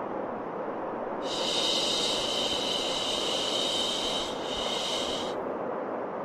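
Steady low white noise for soothing a baby, with a long 'shhh' shushing sound coming in about a second in. After a brief break it gives a shorter second 'shh', then only the steady noise remains.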